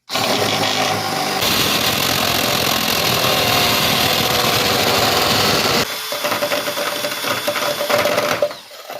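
Power drill boring a hole through the car's sheet-steel firewall for an AC line fitting. It runs loud and steady, eases off about six seconds in to a lighter run with a steady whine, and stops near the end.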